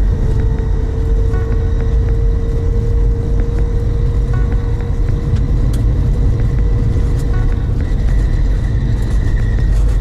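Lada Niva driving over a rough dirt track, heard from inside the cabin: a steady low rumble of engine and tyres with a constant whine running through it.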